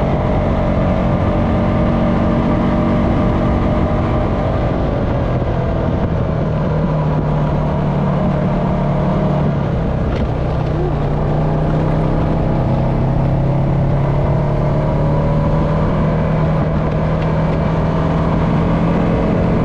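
Honda FourTrax Foreman ATV's single-cylinder engine running steadily under way on a dirt trail, mixed with wind and rattle. The engine note shifts about halfway through, then holds steady again.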